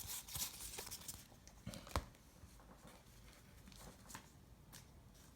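Trading cards and their plastic packaging being handled: a crinkly rustle in the first second, a single sharp click about two seconds in, then a few faint ticks.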